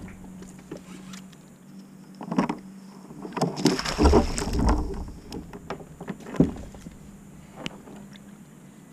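A hooked snapper thrashing and splashing at the surface beside a kayak, loudest about three and a half to five seconds in. A few sharp knocks come before and after the splashing.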